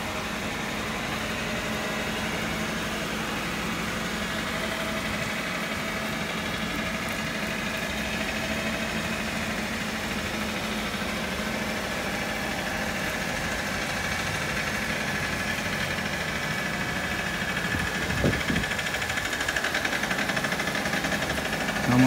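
Steady engine-like machine hum.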